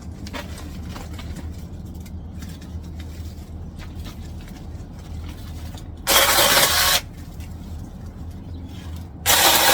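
Small battery-powered chainsaw running in two short bursts of about a second each, one about six seconds in and one near the end, cutting small tree branches.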